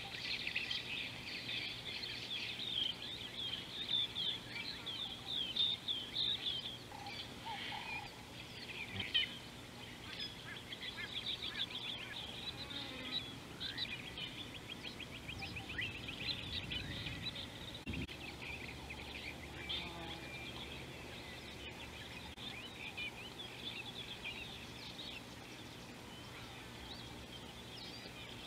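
Many birds chirping and trilling at once in a dense, high-pitched chorus that is busiest in the first few seconds and thins out over the rest.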